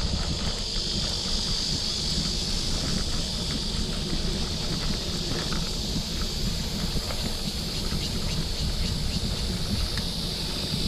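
Wind buffeting the action camera's microphone while riding a bicycle, a steady low rumble, with a steady high-pitched insect chorus from the roadside trees and a few light rattling ticks.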